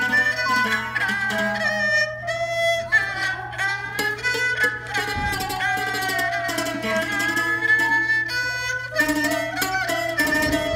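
Jakhe, the Thai three-string floor zither, played with a plectrum: a flowing traditional Thai melody of sustained tremolo-plucked notes that bend slightly in pitch.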